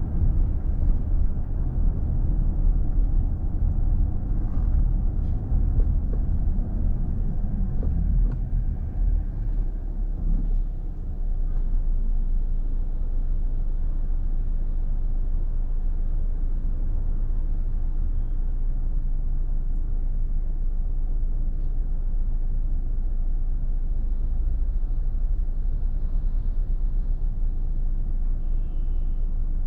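A car's own driving noise: a low, uneven rumble of road and engine while it rolls. About eleven seconds in it settles into a steady low hum as the car stops and idles.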